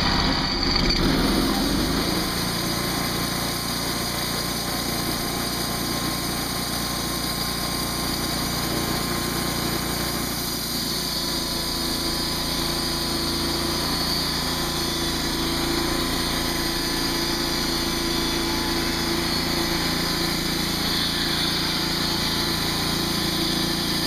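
Engine of a TimberGriz portable band sawmill running steadily under load as its band blade cuts through a red cedar cant.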